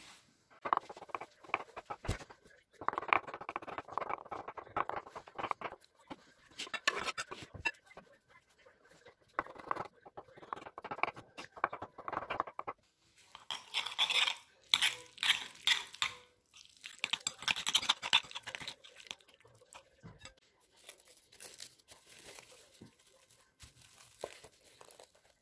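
Kitchen knife chopping hard-boiled egg whites on a wooden cutting board: several runs of quick taps on the board with short pauses between them. Near the end, plastic cling film crinkles as it is unrolled.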